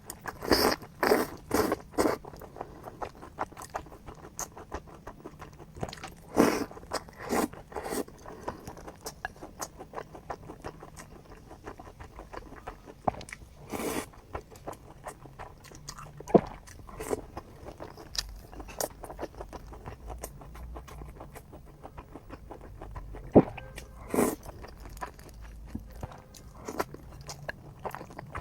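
Close-miked eating: bites and chewing, heard as clusters of short sharp clicks and smacks with quieter chewing in between.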